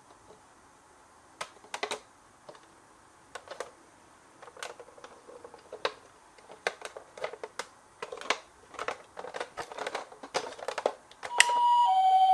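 Small sharp plastic clicks and clatters of miniature toy cars being handled, coming more and more often. Near the end a toy ambulance's electronic two-tone siren starts, alternating a high note and a lower note, each held about half a second.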